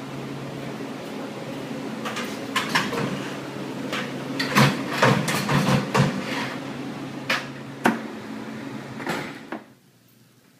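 Buckets and food containers knocked and clattered about while meat is being loaded, a run of sharp knocks over a steady machine hum; it all drops away about a second before the end.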